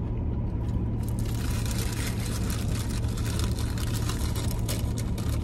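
Paper food wrappers rustling and crinkling, starting about a second in, over a steady low hum inside a parked car.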